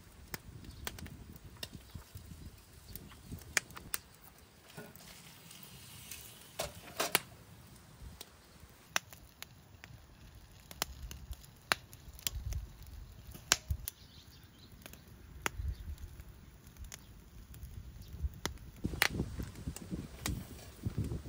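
Wood fire crackling in a small box-type fire pit, with irregular sharp pops and snaps over a low rumble.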